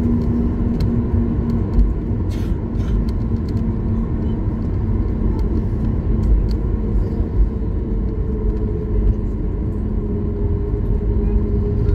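Cabin noise of a Boeing 737 MAX 8 taxiing on its idling CFM LEAP-1B engines: a steady low rumble with a steady hum, and a few faint ticks.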